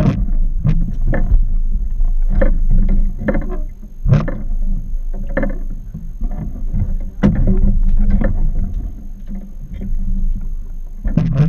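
Small fiberglass skiff drifting at sea: water slapping and knocking irregularly against the hull over a steady low rumble.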